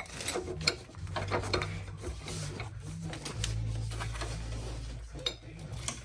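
Irregular metallic clinks, taps and scraping of hand tools and steel suspension parts being worked on.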